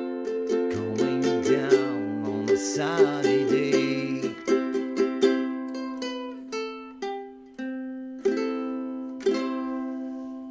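Ukulele music: strummed chords over a bass line, the bass dropping out about four seconds in. The strums then slow and space out into single chords that ring and die away, the closing bars of the song.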